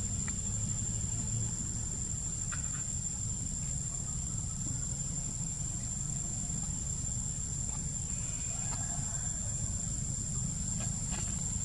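Steady high-pitched insect drone over a low steady rumble, with a few faint clicks.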